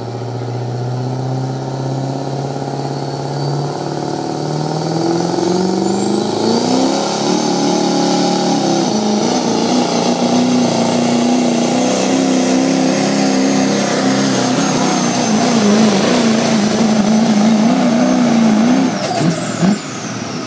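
Turbocharged diesel pickup truck pulling a weighted sled at full power. The engine revs up over the first several seconds with a rising turbo whistle, holds at high revs with a wavering note under load, then drops off near the end as the pull ends.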